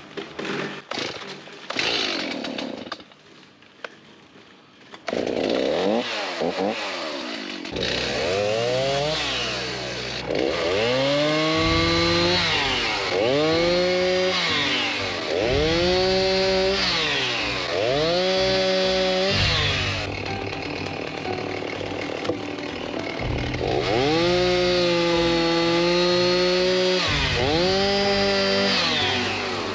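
Petrol chainsaw running, revved up to full speed and let back down about every two seconds as it cuts into dead wood. It starts after a few seconds of scattered clicks and a short lull.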